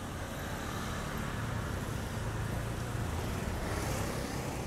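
Steady low rumble of a motor vehicle engine in nearby traffic, swelling slightly about halfway through.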